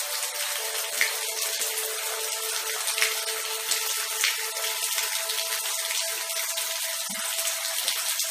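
Steady rain falling, an even hiss dotted with individual drop ticks and a few louder splashes.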